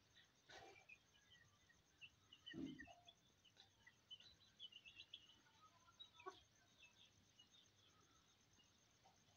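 Near silence with faint scattered bird chirps and a steady high insect trill. A soft low thump comes a little over two and a half seconds in.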